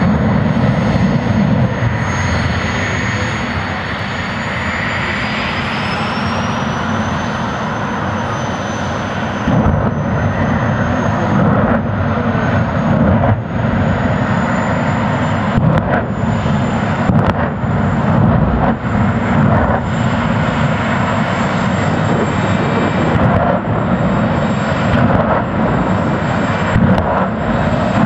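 Jet truck's jet engine running loud and steady while the truck stands still, with a high whine that rises in pitch about five seconds in and then holds. From about ten seconds in, sharp pops come through the roar.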